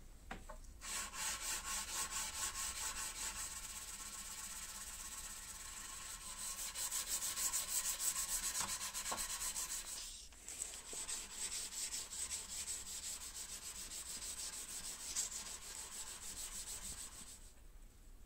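Abrasive paper on a sanding stick rubbed by hand along a high-speed-steel knife blade in quick, even back-and-forth strokes. The strokes pause briefly about ten seconds in, then carry on, and they die away just before the end.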